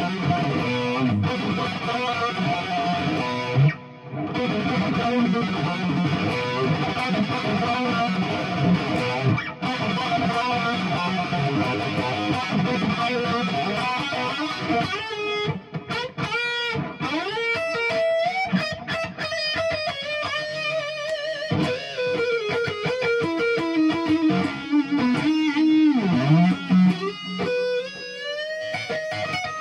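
Electric guitar, a Japanese-made semi-hollow Fender Telecaster with TV Jones pickups, played through an amp. It starts with full chord riffing, with a brief break about four seconds in. From about halfway it moves to single-note lead lines with string bends, ending in a fast climbing run.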